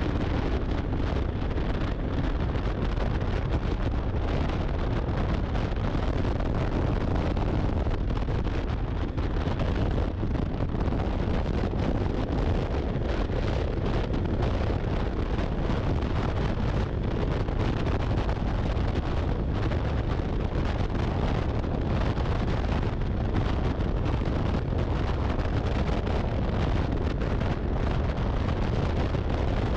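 Snowmobile running steadily at speed, its engine drone mixed with wind buffeting the microphone.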